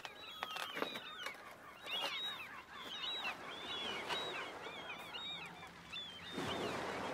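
Seashore ambience: many seabirds calling in quick, overlapping short cries, with a wave washing in about six seconds in.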